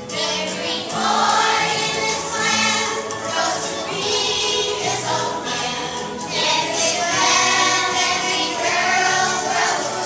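Children's choir of third-graders singing over an instrumental accompaniment.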